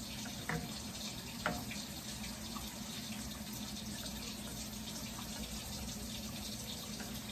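Gravy simmering in a skillet on the stove: a steady watery bubbling hiss, with two light clicks, about half a second and about a second and a half in.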